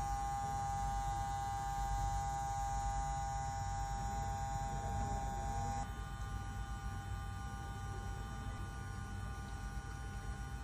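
Small electric water pump running with a steady hum while it fills a water jug; the hum shifts slightly about six seconds in.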